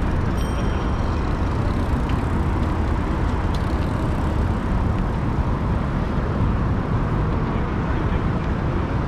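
Steady, dense rush of motor traffic on a bridge roadway. It is heaviest in the low end, and no single vehicle stands out.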